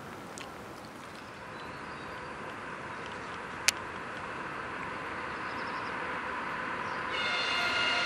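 ChS4 electric locomotive hauling a passenger train, its rumble growing steadily louder as it approaches. About seven seconds in it sounds one horn blast lasting just over a second.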